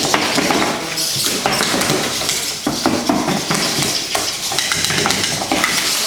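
Small humanoid fighting robots clattering in a bout: a dense run of small clicks, knocks and clinks from their feet, limbs and servos.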